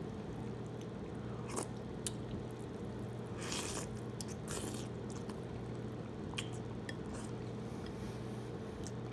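A person eating ramen noodles: two short slurps about three and a half seconds in as a forkful of noodles is sucked into the mouth, with chewing and small clicks of the utensil before and after. A steady low hum runs underneath.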